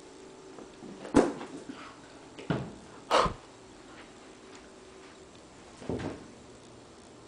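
Four short thumps and knocks. The loudest two come about a second in and about three seconds in, with softer ones in between and near six seconds.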